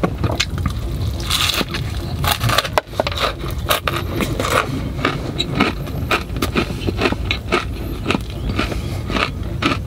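Close-miked chewing of a bite of burger, a steady run of irregular wet clicks and crunches from the mouth.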